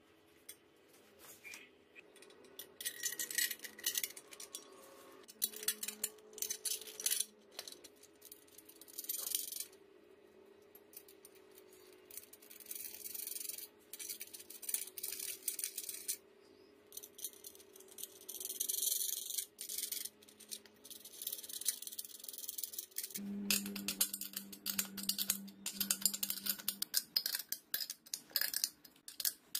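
Small metal hardware clinking, scraping and rattling in short irregular bursts as a motorized-bike fuel tank is fitted onto the bicycle frame and its mounting brackets and nuts are worked onto the studs by hand.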